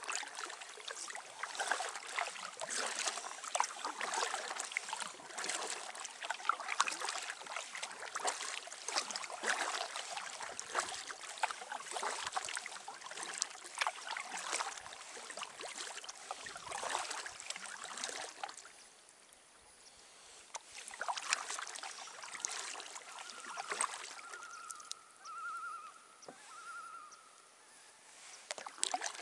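Kayak paddle strokes: the blades dipping and splashing, with water dripping off them in a steady rhythm. The strokes stop for a few seconds about two-thirds of the way through, then resume briefly.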